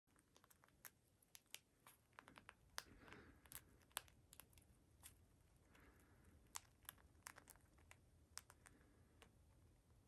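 A cockatiel cracking and picking through seeds in a plastic cup with its beak: quiet, irregular small clicks and crunches, several to the second.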